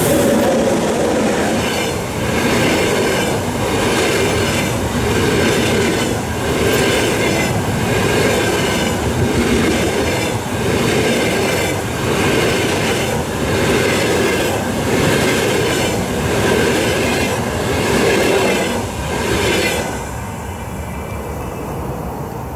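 A fast double-decker passenger train rolls past at speed: steel wheels rumbling and clattering on the rails, with a rhythmic surge about every second and a half as each coach's pair of bogies goes by. About 20 seconds in, the last coach passes and the sound drops to a fading rumble.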